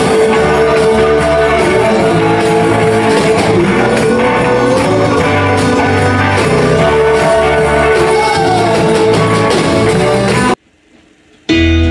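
Live band playing a worship song on drums, electric bass, electric guitar and keyboard. The music cuts off abruptly near the end, and after a short quiet gap a different guitar-led piece begins.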